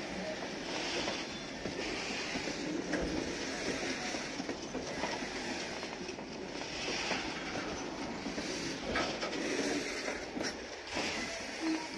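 A long rake of Indian Railways BCNA covered bogie freight wagons rolling past, their steel wheels rumbling and clattering on the rails, with a hissing wheel noise that swells and fades about once a second.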